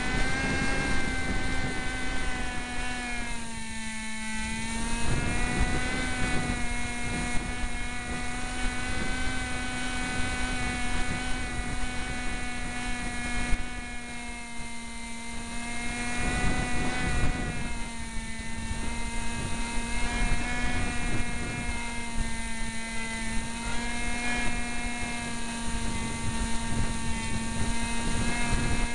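Cox SkyCruiser RC plane's motor and propeller whining steadily at near full power, heard from the onboard camera, with its pitch sagging briefly a few seconds in. Wind rumbles and buffets on the microphone throughout.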